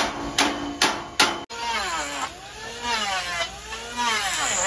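A hammer striking a truck's steel bumper frame four times, about 0.4 s apart, each blow ringing. The sound cuts off abruptly, and a wavering melody with gliding pitch follows.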